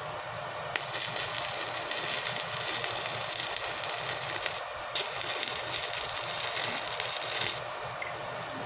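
An electric welding arc crackling and sizzling in two runs, with a short break of about half a second in between. A steady machine hum sounds underneath.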